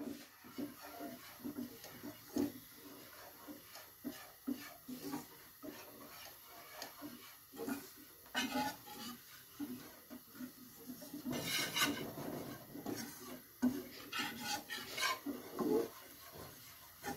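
A stirring utensil scraping dry wheat flour around a pan as it dry-roasts, in a run of irregular scraping strokes, louder for a moment about two-thirds through.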